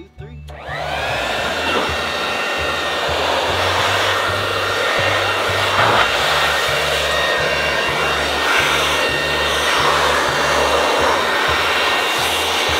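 A small electric motor starts about a second in, whining up to speed, then runs steadily with a loud, even rushing noise, as from a blower or electric pressure washer used to rinse and dry the toy car.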